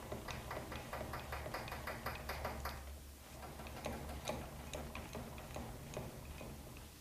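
Metal lathe carriage being cranked along the bed by its handwheel, the gearing giving a quick run of light clicks, about five a second, that slows and thins out after about three seconds.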